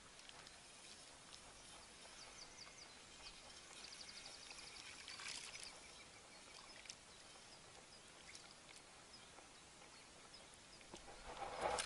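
Near silence: faint outdoor ambience, with a run of faint high ticks or chirps a few seconds in and a brief rustle near the end.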